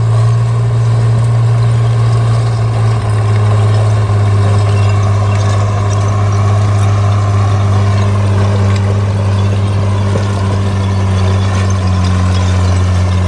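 Caterpillar D3C bulldozer's diesel engine running steadily with a deep, even hum; its pitch sags slightly about eight seconds in and recovers a few seconds later.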